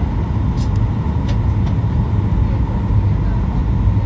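Aircraft cabin noise on approach: a loud, steady low rumble of engines and airflow, with a faint steady whine over it.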